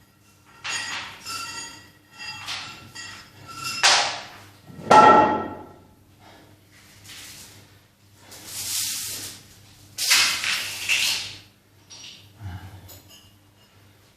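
Metal gym weights clanking: a string of knocks with ringing tones that fade, the loudest two about four and five seconds in, then two longer hissing bursts and a dull thud near the end.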